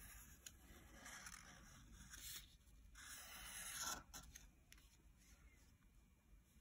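Faint scratching of a black Sharpie permanent marker's felt tip drawn across paper in several strokes, the longest swelling about three seconds in and stopping abruptly about a second later.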